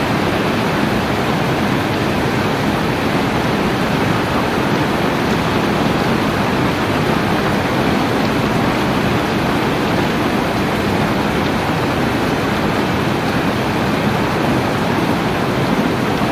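Heavy rain falling steadily: an even, unbroken hiss of rainfall.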